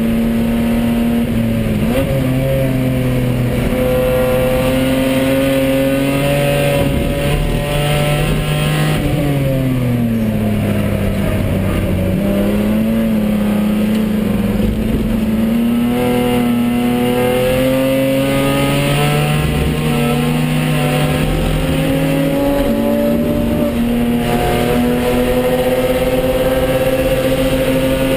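BMW E30 325i race car's straight-six engine heard from inside the cabin under racing load. Its note climbs, drops away for a few seconds about nine seconds in, then climbs steadily again.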